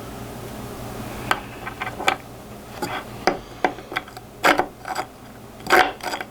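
3D-printed plastic jig parts and a shaft clicking and knocking together as the snap ring jig is pushed down and worked by hand: an irregular run of sharp clicks starting about a second in, with a few louder clacks.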